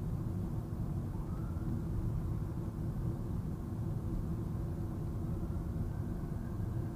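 Steady low road and engine noise heard inside a car cruising on a highway. A faint tone rises about a second in and again near the end.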